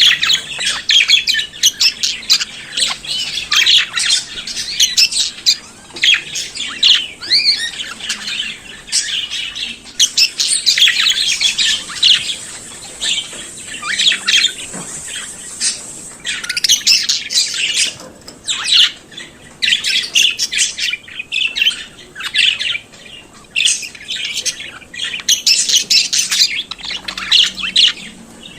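Budgerigars singing and chattering: a dense, rapid run of warbles, chirps and squawks with short breaks.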